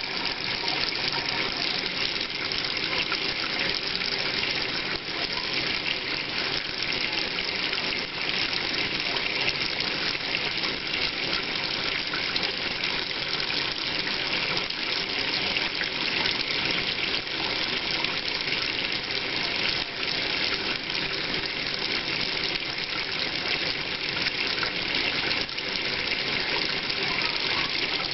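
Water running in a kitchen sink: a thin stream from the tap falls into the drain while salt water is poured slowly from a glass measuring cup onto the sink floor. The splashing and trickling run steadily.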